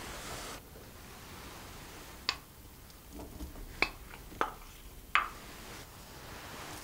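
A wooden spatula scraping grated mozzarella out of a small glass bowl into batter, with four sharp, briefly ringing taps of the spatula and glass against the bowls spread over a few seconds.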